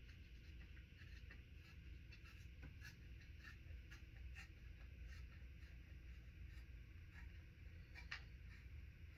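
Near silence: a low steady room hum with faint, scattered small clicks and scratchy ticks, a slightly clearer click about 8 seconds in.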